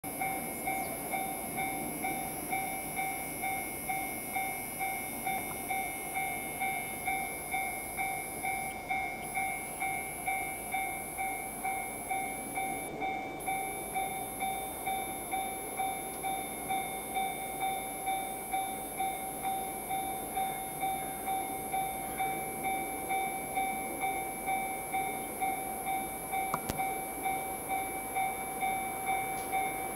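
Railway crossing alarm ringing steadily at about one and a half strokes a second, under which is the faint rumble of an approaching freight train hauled by a DF200 diesel-electric locomotive.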